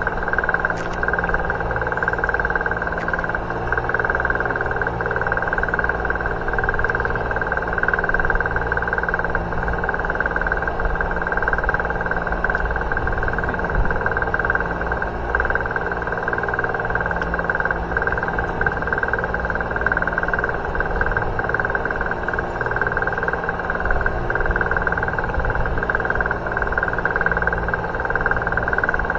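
Boat engine running steadily: an unchanging drone with a steady high whine.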